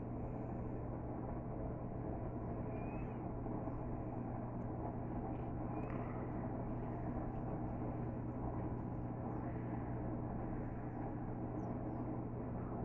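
Electrolux LT12F washing machine running its spin with a full load: a steady motor hum with an even low drone.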